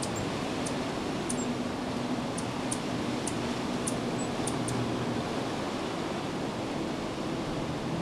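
A scatter of short, very high, thin chips from Anna's hummingbirds, about ten in the first five seconds and then almost none, over a steady outdoor background rush.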